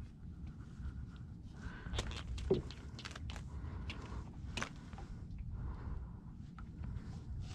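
Hand line being hauled in by hand over the side of a small boat: scattered light clicks, knocks and scrapes of hands and line, the loudest about two and a half seconds in, over a steady low rumble.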